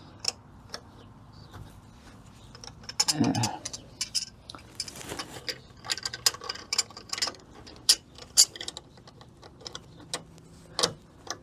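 Hand tool on the flatted front hub nut of a 1994 Ford Ranger 4x4, giving irregular metallic clicks and clinks as the nut is worked loose, with a short louder sound about three seconds in.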